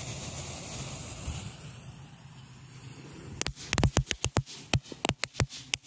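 Magic whip crackling strip firework, partly buried in dirt: its lit fuse hisses, then about three and a half seconds in the crackling stars start going off in a rapid, irregular run of sharp cracks.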